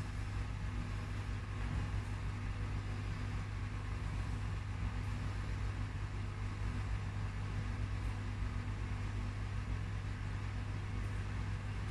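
Steady low mechanical hum that holds unchanged throughout, over a faint even hiss.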